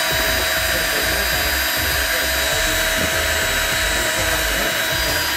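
Cordless battery drill spinning free with nothing in the chuck, its motor whining at a steady speed.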